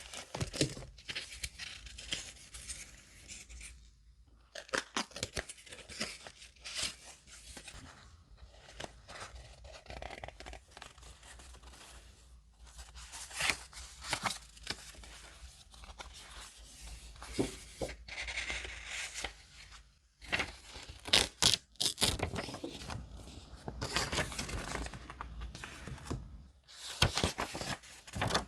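Close-up sounds of paper being torn and handled for a junk journal, in irregular bursts with short pauses and a few sharp clicks.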